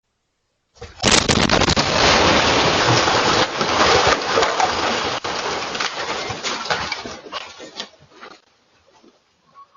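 A house exploding, picked up by a Ring doorbell camera's microphone: a sudden very loud blast about a second in, then several seconds of crackling noise from the blast and falling debris, which fades out by about eight seconds.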